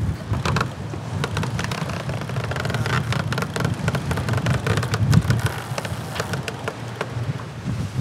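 A sailboat winch ratcheting in irregular clicks as a line is hauled in and winched to raise a sail. Underneath runs a low rumble of wind on the microphone and water rushing past the hull.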